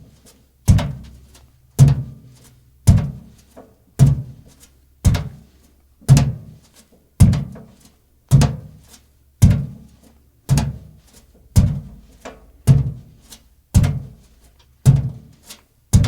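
Bare feet walking at a slow, even pace, each step a heavy thud with a short decay, about one step a second, with faint lighter ticks between some steps.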